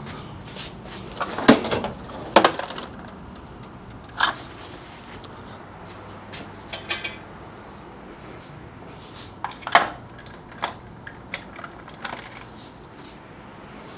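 Metal tools and hardware clinking: a dozen or so sharp, scattered clinks and rattles, the loudest about two seconds in and again near ten seconds, as wrenches or sockets are sorted out to size the bolts.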